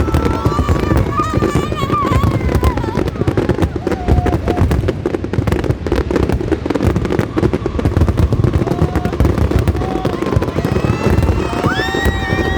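Aerial fireworks going off in a dense, continuous barrage of rapid crackling reports and bangs.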